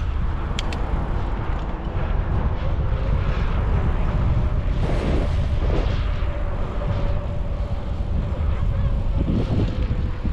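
Wind rumbling on the microphone of a moving bicycle, over road traffic. A faint steady hum comes in about halfway through.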